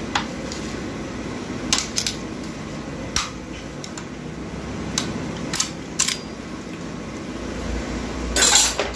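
Scattered sharp metal clinks and taps of hand tools on the steel parts of an automatic transmission being taken apart, as a snap ring is worked off. A louder burst of metallic rattling comes near the end, over a steady background hum.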